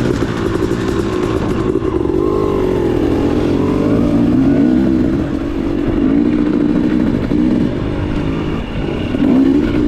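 Dirt bike engines running, the revs rising and falling unevenly as the bikes ride off-road down a rough trail.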